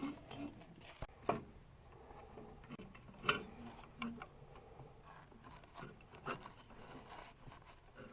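Scattered light clicks, taps and rubs of hands handling small oil-burner parts, the CAD cell flame sensor and its wiring, with the sharpest clicks about a second and three seconds in.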